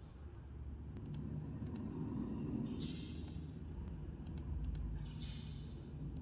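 Computer mouse clicking a handful of times at irregular intervals over a steady low hum.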